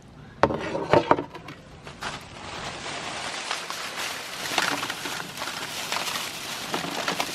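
Crisp pani puri shells crackling and crunching as they are crushed in a meat grinder, with a few sharp knocks in the first second before a dense run of small snaps sets in.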